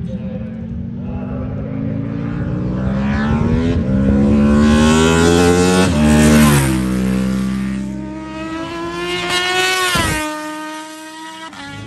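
Racing motorcycle engines at full throttle as bikes pass on the straight. The engine note climbs to a loud peak about six seconds in and drops sharply in pitch as a bike goes by. A second bike's note rises and falls and breaks off about ten seconds in, and a new rising note begins near the end.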